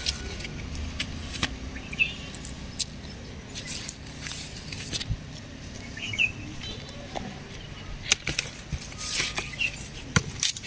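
Leaves and stems of an eggplant plant rustling as they are handled, with scattered sharp clicks and snips from scissors cutting the fruit, several of them close together near the end.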